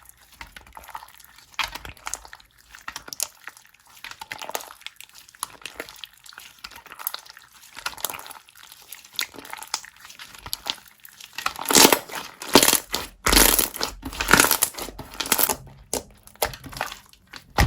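Irregular crinkling and crackling, like something being crumpled or handled close to the microphone. It is louder for a few seconds near the end.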